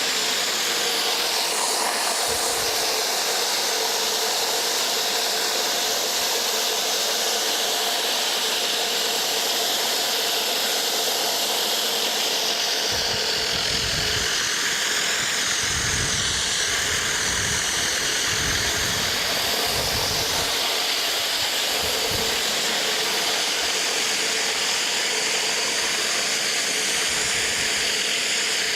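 Pressure washer running steadily: the machine's engine drone under the hiss of high-pressure water from a surface cleaner working on driveway concrete. Some irregular low rumbles come through about midway.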